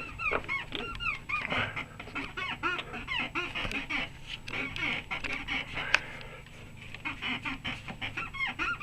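Rubber bushing of a Lada Niva's rear suspension reaction rod squeaking as the suspension moves: a run of short, high, curving squeaks that thin out partway through and pick up again near the end. The squeak is the sign of this bushing, found to be the source of the rear-end squeaking.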